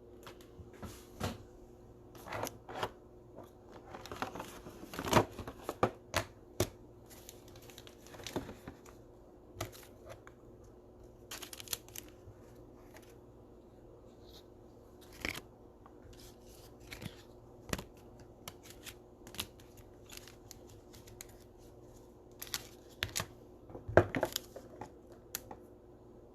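Trading cards being handled and slid into plastic sleeves and rigid toploaders: scattered light clicks, taps and rustles of plastic and cardboard, with a louder clack about 24 s in.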